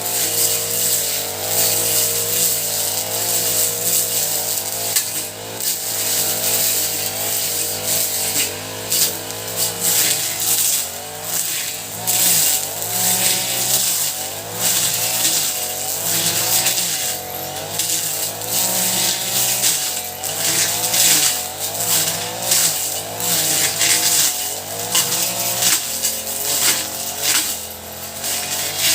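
Honda four-stroke brush cutter engine running, its pitch wavering up and down, with a constant high hiss.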